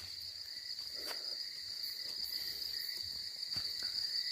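Night insects trilling steadily in a high, continuous drone, with a few faint clicks: one about a second in and two more near the end.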